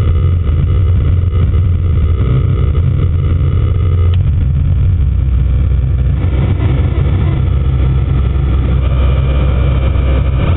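Drunken Ninja circuit-bent analog synth and distortion unit putting out a loud, rough low drone from its gated VCO, modulated by the LFO, as its knobs are turned. Higher held tones cut off with a click about four seconds in, and the sound turns noisier and grittier in the second half.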